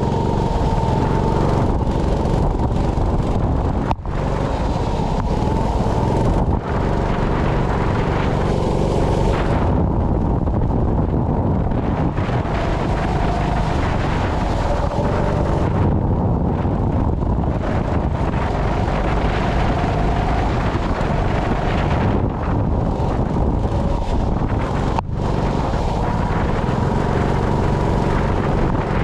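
Sprint go-kart engine running steadily on track, heard from the kart with wind buffeting the microphone. The roar dips briefly twice.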